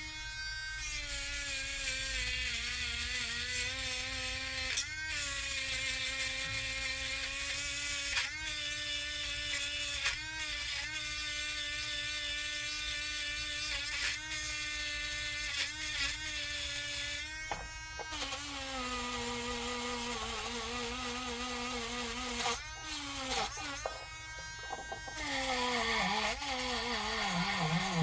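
Dremel rotary tool with a wire brush running steadily, wire-brushing steel. Its whine dips briefly in pitch several times as the brush is pressed into the work. It eases off for a moment near the end, then comes back up.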